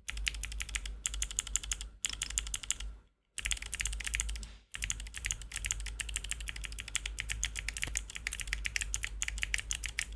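Steady fast typing on a mechanical keyboard with Gateron Melodic clicky switches, whose click bar clicks on both the press and the return. A dense run of crisp clicks with a few short pauses, the longest a little past three seconds in.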